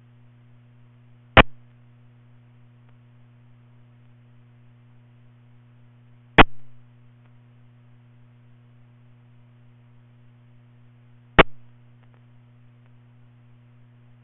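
Steady electrical hum on a radio scanner's audio with no traffic, broken by three sharp clicks evenly spaced about five seconds apart.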